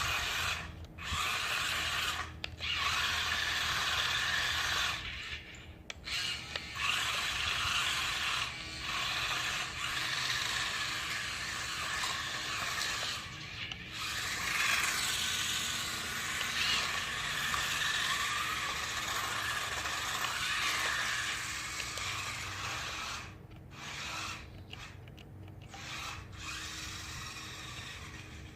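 Sharper Image Spin Drifter 360 toy remote-control car's small electric motors and gearing whirring, running in spells with short stops as it is driven, with several quick stop-starts near the end.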